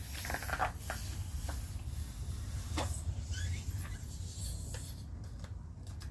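A small latex balloon being blown up by mouth, with a breathy rush of air at the start, then rubber rubbing and squeaking with a few sharp clicks as the balloon's neck is stretched and knotted. A steady low hum runs underneath.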